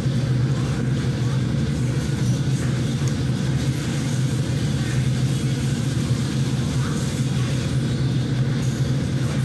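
A steady low hum or rumble, like a motor or fan running, unchanging throughout.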